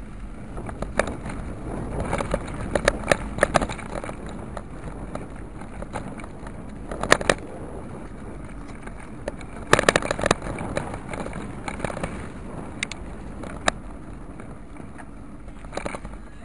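Steady rumble of wind and road noise on a moving action camera's microphone, broken by clusters of sharp clicks and knocks as it jolts over rough asphalt, the loudest about seven and ten seconds in.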